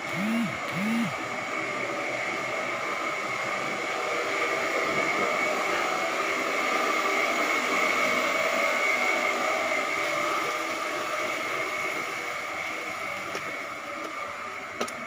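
Steady vehicle running noise that swells a little in the middle and eases off toward the end, with two short rising-and-falling sounds about half a second apart near the start.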